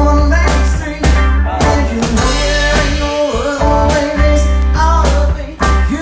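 Live music: a hollow-body electric guitar strummed steadily, with a kick drum thumping about once a second under it and a man singing.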